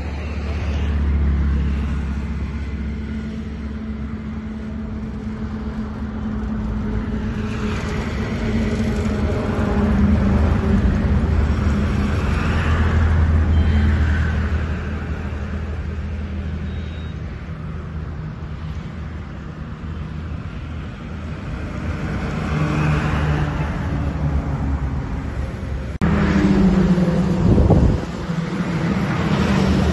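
Road traffic: motor vehicles running and passing, with a steady low engine hum and noise that swells as vehicles go by. About four seconds from the end it turns abruptly louder for a couple of seconds.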